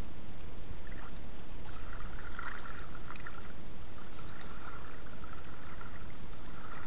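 Shallow river water sloshing around a person wading while hauling in a cast net, over a steady low rumble.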